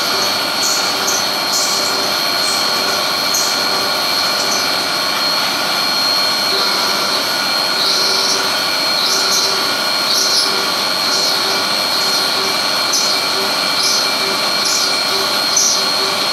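Haas Minimill CNC milling a 16 mm mild steel plate under flood coolant: a steady high whine and constant cutting noise, with short high crackles every second or so.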